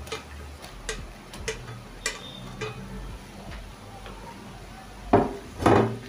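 Kitchen utensil knocking against a frying pot: light clicks about every half second, then two louder scraping clatters near the end.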